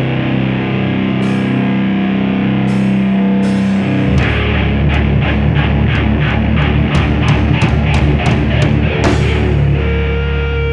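Loud distorted rock band playing live: electric guitar and bass hold chords, and the drum kit comes in about four seconds in with evenly spaced hits, about three a second. The drums stop near nine seconds, leaving the guitar ringing on held notes.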